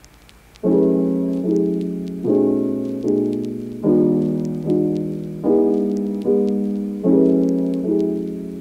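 Calm piano background music that starts about half a second in, with a chord struck roughly every second that fades away before the next.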